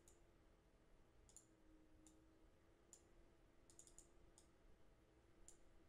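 Faint computer mouse clicks, a few scattered sharp clicks over near silence with a low steady hum.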